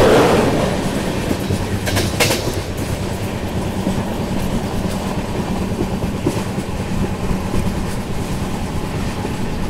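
Express train running at speed, heard from an open coach doorway: a steady rumble of wheels on rail with wind rush. It is louder for the first half-second, and a couple of sharp rail-joint clacks come about two seconds in.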